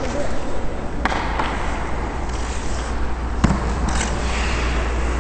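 Hockey skates gliding and scraping on rink ice, heard close up from a helmet-mounted camera over a steady low rumble, with two sharp knocks, about a second in and again about three and a half seconds in.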